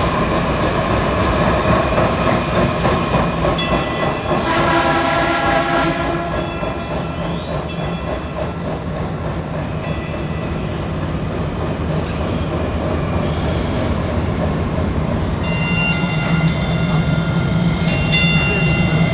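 DART light rail trains (Kinkisharyo cars) running on street-level track, with a steady rumble of motors and wheels. A horn sounds briefly about five seconds in, and repeated metallic clicks ring out from about fifteen seconds on as another train comes in.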